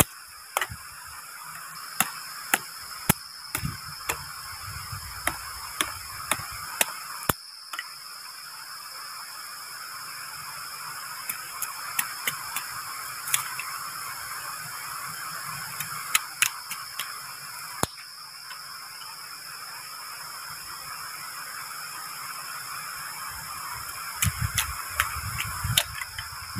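Sharp, irregular cracks and clacks of bamboo being split and trimmed with a machete, with a few duller thumps of handling. Under them runs a steady high shrill of night insects.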